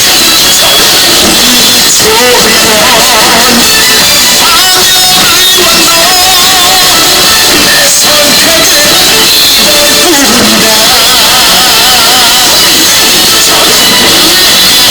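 Loud music with a singing voice and a band backing, held at a steady high level.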